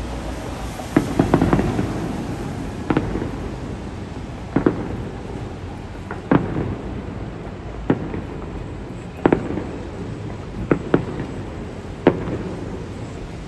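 Aerial fireworks shells bursting: about a dozen sharp bangs, roughly one every second and a half with a quick cluster about a second in, over a steady low rumble.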